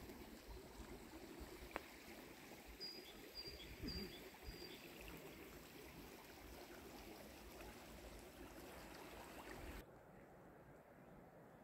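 Faint, steady babble of a small forest brook. A small bird gives four short high chirps about three seconds in. The water sound cuts off abruptly near the end, leaving a quieter hush.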